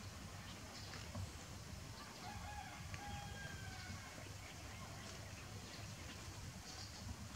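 Quiet outdoor ambience: a steady low rumble, with a faint drawn-out call, likely a distant bird, between about two and three and a half seconds in.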